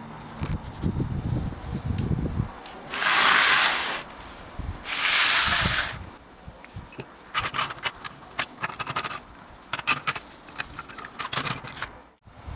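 Loose metal parts of an old kitchen scale clinking and scraping against each other in a plastic tray, in clusters of sharp clicks in the second half. Two hissing bursts of about a second each come earlier.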